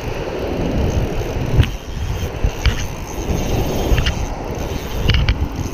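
Wind buffeting the microphone over the wash of surf, with a few sharp clicks.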